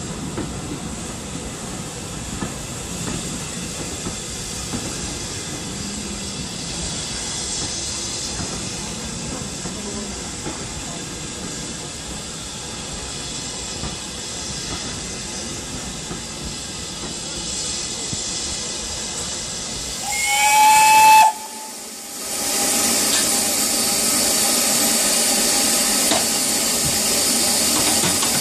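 Passenger carriages rolling past on the rails, a steady low rumble. About two-thirds of the way in, a steam locomotive's whistle sounds loudly for just over a second and rises slightly at the end. Then comes a steady loud hiss of steam from a steam locomotive standing close by.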